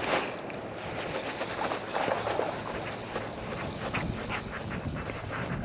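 Wind blowing across the microphone, with choppy water lapping and splashing irregularly against a kayak's hull.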